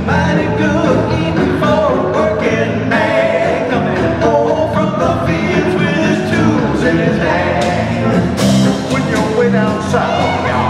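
Jug band playing live: acoustic guitar, electric guitar, bass and snare drum at a steady beat, with a lead melody line over them.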